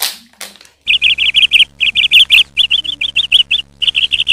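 A brief crinkling tear of the chip packet being bitten open, then a dubbed-in chirping sound effect: quick, high chirps in short rapid runs, starting about a second in and cutting off abruptly.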